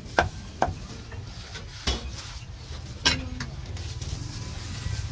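A heavy cleaver chops roasted meat on a thick wooden chopping block: four sharp, unevenly spaced chops. The last, about three seconds in, is louder and rings briefly. A steady low background hum runs underneath.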